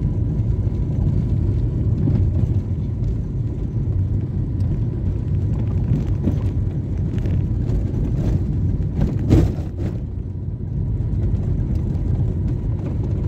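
Car driving slowly on a wet road, heard from inside the cabin: a steady low rumble of engine and tyres. There is a single louder knock about nine seconds in.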